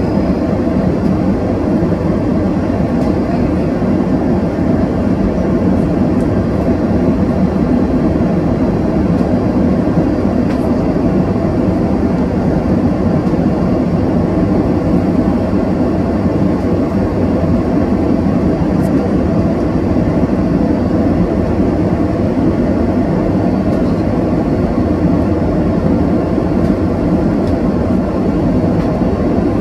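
Steady rush of cabin noise inside an Airbus A330 airliner on its final descent: engine and airflow noise that holds even throughout, with a faint high whine above it.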